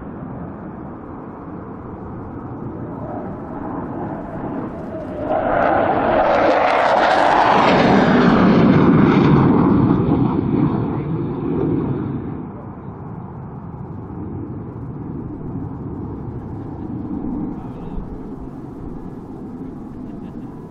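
F-15 twin-engine fighter jet making a low-level pass. Its jet roar swells sharply about five seconds in, is loudest for a few seconds, then fades to a distant rumble by about twelve seconds.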